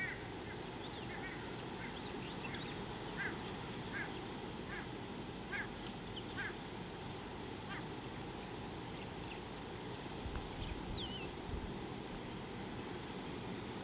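Egyptian goose giving short, repeated calls, irregularly about once a second for the first eight seconds, then one higher falling call near eleven seconds, over a steady low outdoor background noise.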